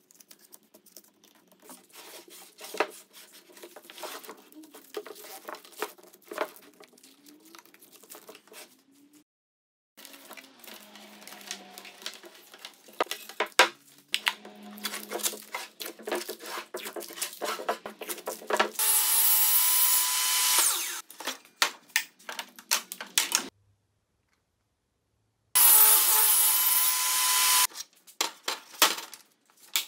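Green painter's tape being handled on a wooden frame: light crinkling, rubbing and pressing. Later come two loud, shrill stretches of tape being pulled off the roll, each lasting about two seconds, the first about two-thirds of the way in and the second near the end.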